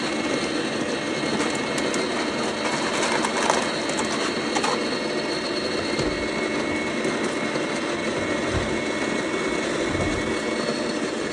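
Electric coffee grinder running steadily, grinding beans fine for espresso.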